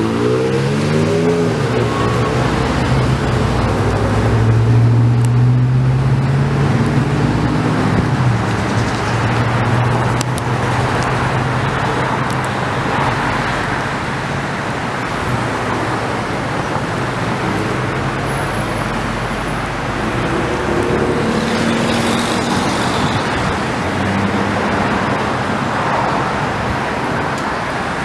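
City street traffic: cars and other motor vehicles passing. A vehicle accelerates near the start with its engine note rising, and a steady low engine hum runs under the tyre noise for much of the time.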